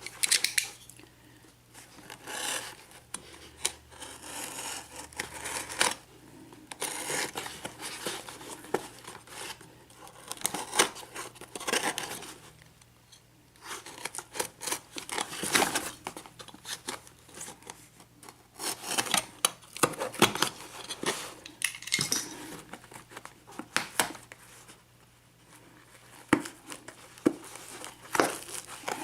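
A cardboard shipping box being opened by hand: tape being cut and torn and the box and its packing rustled and handled, in intermittent scratchy bursts with scattered sharp clicks.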